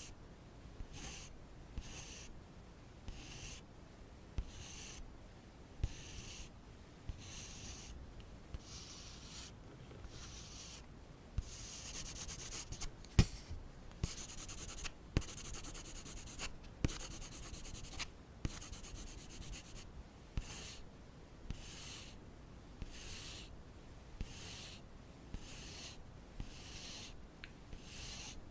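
Soft makeup-application strokes brushing and rubbing close to the microphone, about one stroke a second. They run faster and almost continuously for a few seconds in the middle, with a few light taps and clicks, the sharpest about halfway through.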